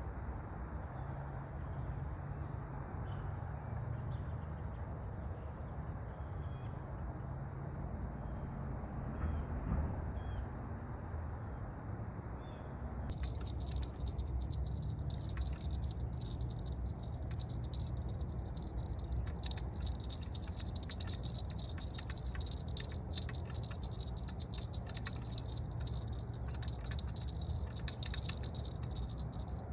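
Chorus of insects, crickets among them, trilling steadily. About halfway through, a louder, higher-pitched chirring takes over, full of quick ticks, over a low steady hum.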